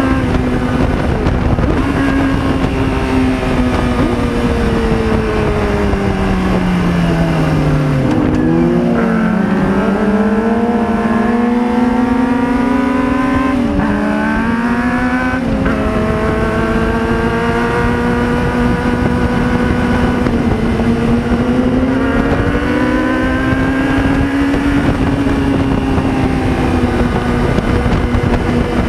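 2005 Yamaha YZF-R6 inline-four engine at track speed through an aftermarket Roadsitalia silencer with no dB killer, held at high revs. About a quarter of the way in the revs fall smoothly, then climb again with a few quick drops in pitch as it shifts up. After that it holds high revs steadily.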